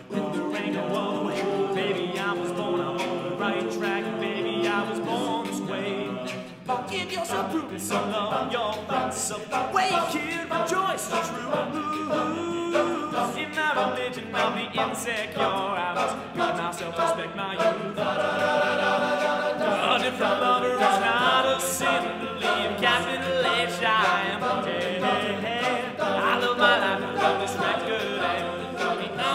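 A men's a cappella group singing a pop song arrangement, several voices in harmony with no instruments. There is a brief dip about seven seconds in, then the singing carries on.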